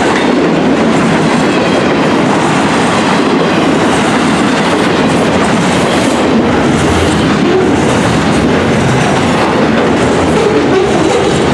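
Freight train of double-stack container well cars rolling past, steel wheels on the rails making a loud, steady noise.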